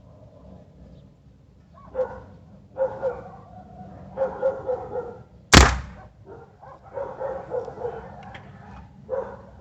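A dog barks repeatedly, and about five and a half seconds in a single sharp, loud report from a Beeman Commander PCP air rifle fired with its suppressor removed, the loudest sound here.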